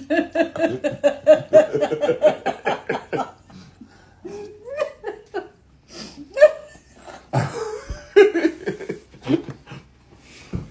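A woman laughing hard in rapid, repeated 'ha-ha' bursts, which thin out after about three seconds into scattered laughs and chuckles.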